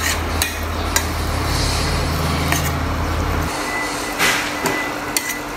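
Diced pork belly sizzling in a stainless-steel frying pan while a spatula scrapes and knocks against the pan as the meat is stirred. Under it a low hum stops about three and a half seconds in.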